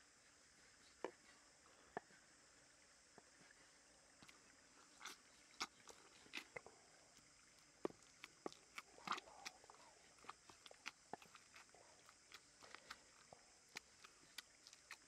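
Wooden pestle pounding and mashing wet, chunky food in a wooden mortar: quiet, irregular soft knocks, only a couple at first and coming much more often from about four seconds in.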